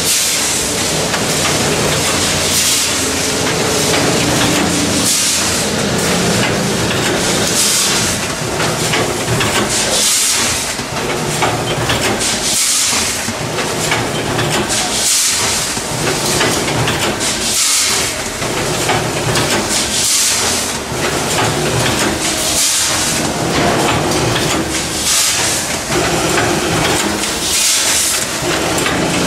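Vertical form-fill-seal cat food bagging machine running. A short hiss of air from its pneumatic sealing jaws repeats about every two and a half seconds over steady machine noise.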